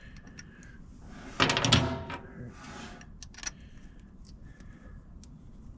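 A short burst of metal clattering about a second and a half in, then a few scattered light clicks: bolts and hand tools being handled during a battery hold-down repair.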